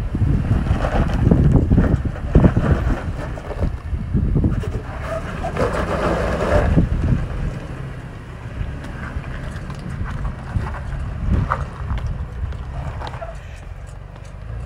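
Wind buffeting the microphone over the engine of a 2018 Toyota 4Runner TRD Off-Road crawling up a steep rock ledge, the engine louder for a couple of seconds around the middle.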